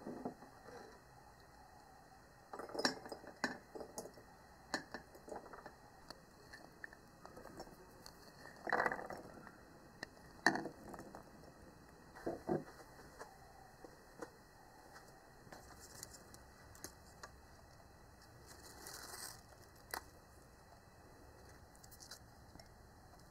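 A glass jar is handled on a wooden table while pomegranate seeds and mint leaves are put into it: scattered soft clicks and taps of seeds and glass, with a few louder knocks spread through.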